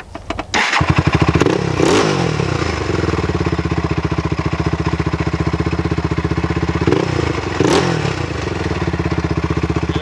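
Honda TRX400EX ATV's single-cylinder four-stroke engine running with a rapid, even beat, revved up briefly about two seconds in and again around seven to eight seconds. It is making bad noises that the riders take for an internal engine fault.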